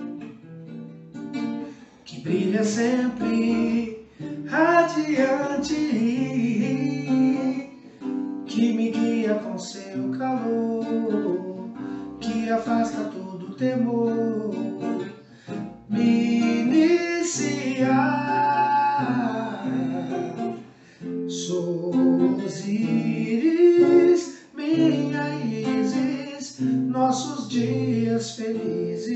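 A man singing a song while strumming an acoustic guitar, with short gaps between sung phrases.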